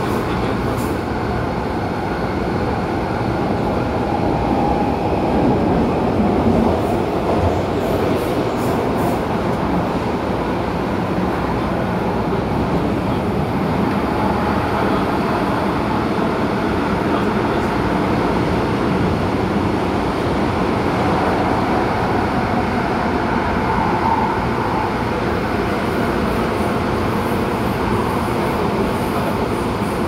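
MTR Tung Chung line A-train, an electric multiple unit, running steadily, heard from inside the carriage as a continuous rumble and rolling noise.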